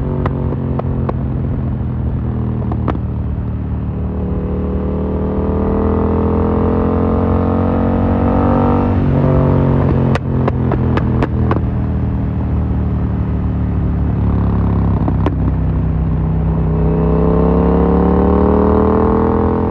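Yamaha MT-07's parallel-twin engine breathing through an Akrapovic carbon full exhaust under acceleration. The engine pitch climbs steadily twice and drops sharply each time at the top of the pull. A quick run of sharp pops from the exhaust sits just after the first drop.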